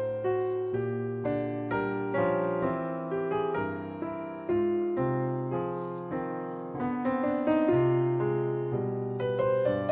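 Background piano music: a gentle melody of single notes struck about twice a second, each fading away.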